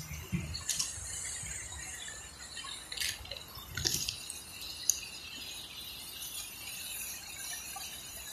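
Steady hiss of falling water from a fountain jet splashing into its pond, with rain falling. A few sharp ticks and knocks come through, about one, three, four and five seconds in.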